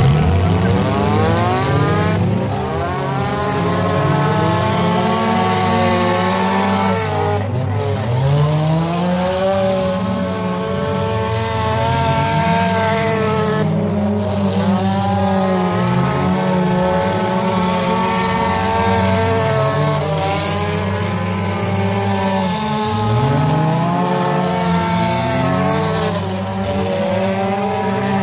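A pack of figure-8 race cars' engines revving together as the heat starts, then running on with many overlapping pitches rising and falling as drivers accelerate and back off around the dirt track.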